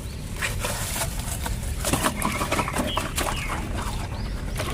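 Plastic toys being handled and knocked together: scattered clicks and knocks over a low rumble, with a few brief high chirps.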